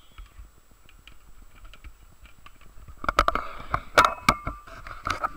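Close knocks and clatter of things being handled on a boat, faint at first, then several loud sharp knocks from about three seconds in, with a brief squeak around four seconds.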